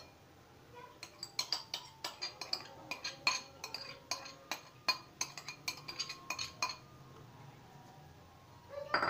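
A spoon clinking and scraping against a ceramic bowl in a quick, uneven run of sharp ringing clinks, as garlic-ginger paste is scraped out of the bowl; the clinking starts about a second in and stops after about six seconds.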